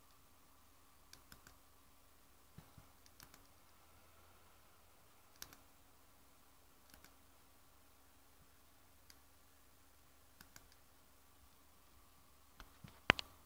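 Scattered clicks of a computer mouse, often two in quick succession, with a much louder cluster of clicks near the end, over a faint steady hum.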